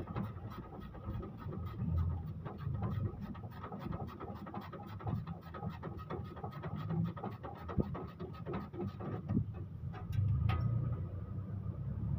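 Quick, uneven clicking and rubbing from hands and tools working at an engine's cooling fan and pulleys, over a low rumble. The clicks thin out toward the end.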